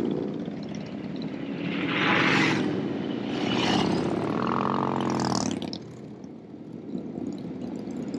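Motorcycles riding past one after another. The engine sound swells and fades about three times, then drops to a lower rumble in the last couple of seconds.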